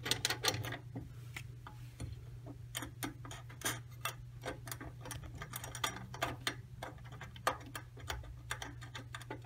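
Irregular small metallic clicks and taps from a steel mounting bracket being fitted under a tabletop and its nut turned on the threaded stud, over a steady low hum.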